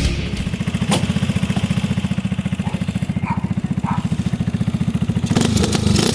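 AKT NKD 125's single-cylinder four-stroke engine idling through a stainless steel full-system racing exhaust with a steady, fast, even beat. Near the end it is revved a few times.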